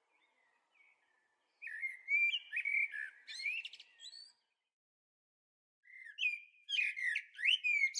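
A songbird singing two warbling phrases with sliding pitch, separated by a pause of about a second and a half; the second phrase starts about six seconds in.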